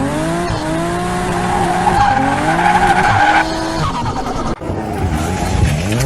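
Racing car engine revving, its pitch rising and falling, with tires squealing; the squeal stops sharply about three and a half seconds in.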